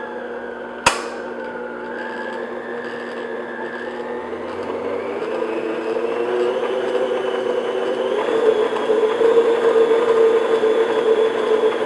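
Electric stand mixer running, its flat beater mixing flour into thick cake batter in a glass bowl: a steady motor whir with a single sharp click about a second in. It grows gradually louder and stops near the end.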